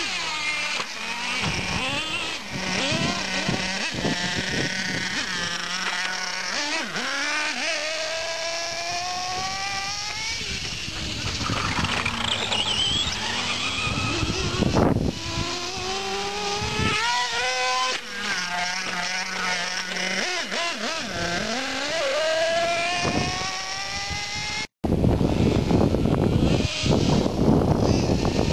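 Small RC car engines revving up and down, several at different pitches. There are an occasional sharp knock and a brief gap near the end, after which the sound is louder and rougher.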